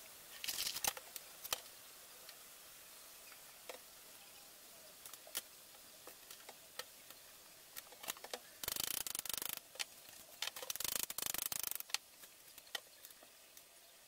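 Knife cutting vegetables on a cutting board: scattered single taps, then two runs of quick chopping, one about nine seconds in and a longer one about eleven seconds in.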